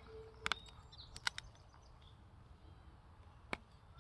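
German shepherd puppy gnawing a dead stick: a few sharp cracks of wood, about half a second in, twice just over a second in and once near the end, with faint birdsong behind.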